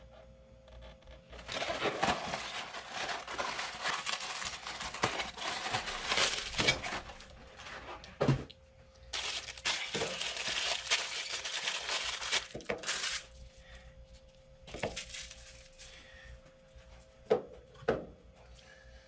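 Crinkling and crushing as an oatmeal creme pie is handled and broken up, in two long dense stretches, followed by a few sharp separate taps near the end.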